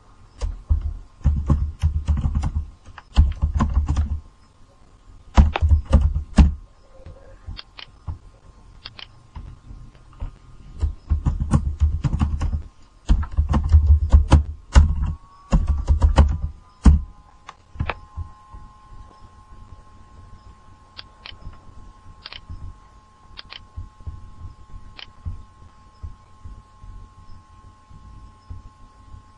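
Computer keyboard being typed on in quick bursts, each keystroke a click with a heavy low thud. In the second half the typing gives way to sparse single clicks, and a faint steady whine comes in about halfway through.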